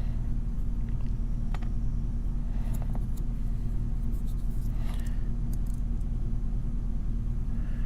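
Steady low background hum throughout, with a few faint small metallic clicks about a second and a half, three and five seconds in from picking and handling a brass padlock.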